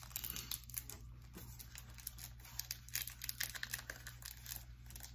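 Crinkling and tearing of a Cadbury Flake bar's plastic wrapper being opened, a dense run of small, irregular crackles.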